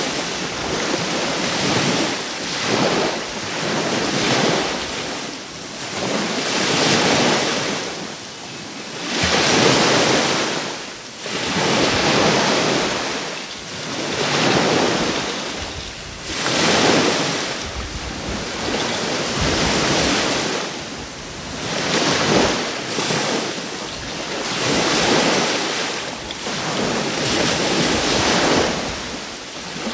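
Small sea waves washing onto the shore, one surge after another about every two to three seconds, with some wind buffeting the microphone.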